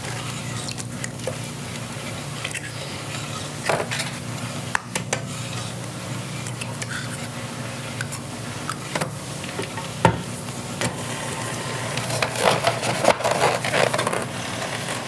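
Eggs being tapped and cracked on the rim of a stainless steel mixing bowl: a few separate sharp knocks over a steady low hum.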